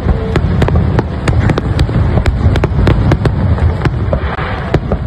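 Aerial fireworks display: a rapid, irregular run of sharp bangs from bursting shells, several a second, over a continuous low rumble.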